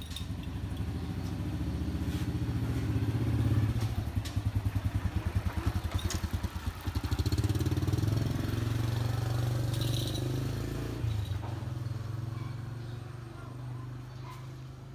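Motorcycle engine running, with a fast, even pulsing, getting louder over the first few seconds and then fading slowly away, as when a motorbike passes by.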